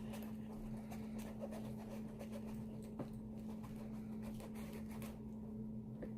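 Slime being stirred in a small container: faint, irregular sticky clicks and scrapes over a steady low hum.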